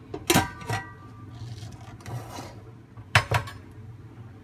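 Stainless-steel pressure cooker lid being fitted and closed onto the pan: a ringing metal clank about a third of a second in, a brief scraping rub around two seconds, then two sharp metal clicks a little after three seconds.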